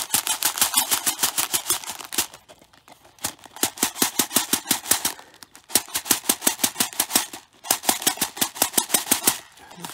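Taped-together plastic containers of fine granular solid shaken hard, the grains rattling against the plastic in four bursts of rapid strokes with short pauses between. The shaking settles the grains so that the two columns level out to equilibrium.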